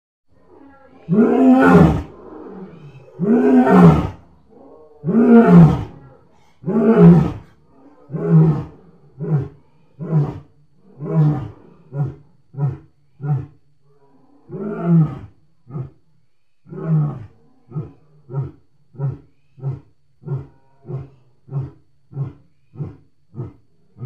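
Lion roaring bout: four long, full roars about two seconds apart, then a long run of short grunting roars that get shorter and come closer together, with a brief pause part-way through.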